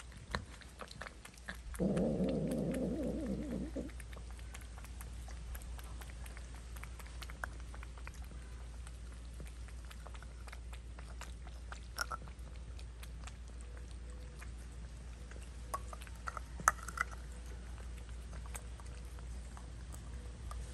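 Cats eating sardines from a can: wet chewing and licking clicks, with one loud, low, drawn-out cat call of about two seconds near the start, and a few sharper ticks later.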